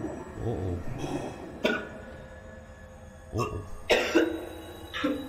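A person coughing several times in short, sharp bursts, with throat clearing; the loudest coughs come in a quick pair near the end.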